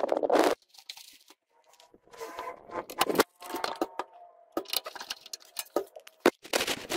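Hands handling parts inside a steel computer case: irregular clicks, taps and knocks of metal and plastic, with a short scraping burst that stops about half a second in.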